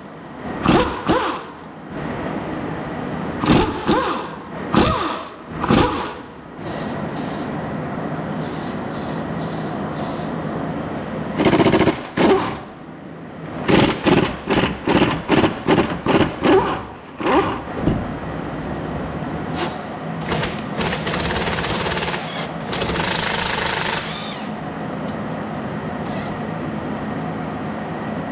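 Repeated short bursts of a pneumatic impact wrench, some single and some in quick runs, over a steady mechanical hum.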